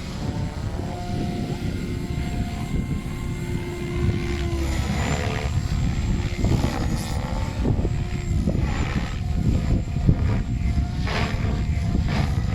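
Goblin 580 electric RC helicopter in flight, its motor and rotor whine gliding up and down in pitch as it manoeuvres, under a heavy rumble of gusty wind on the microphone.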